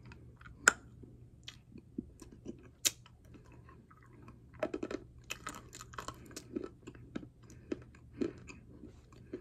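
A person biting and chewing hard edible clay stones: irregular crunches and clicks, sparse at first and coming thickest from about halfway through.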